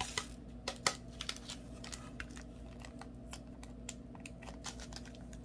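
Scattered light clicks and taps of a plastic diamond-painting tray and its small acrylic drills being handled and put away, with one sharper click about a second in.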